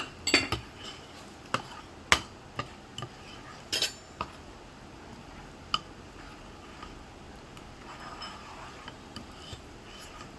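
A spoon clinking and knocking against a bowl in a handful of sharp, irregular strikes, mostly in the first six seconds, as the rice-flour batter is stirred.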